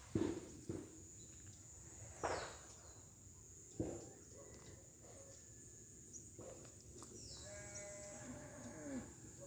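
A cat gives one drawn-out meow that falls in pitch at the end, starting about three-quarters of the way through. Earlier there are a few short knocks and rustles, and a few short high bird chirps.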